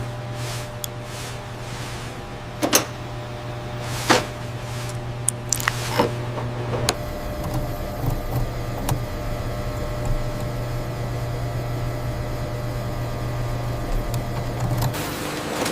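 Factory machinery running with a steady low hum, with sharp clicks and knocks scattered through the first half.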